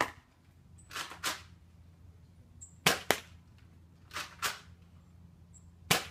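Nerf Rival blaster firing foam balls: three sharp snapping shots about three seconds apart, with a softer double clack between shots as the blaster is primed.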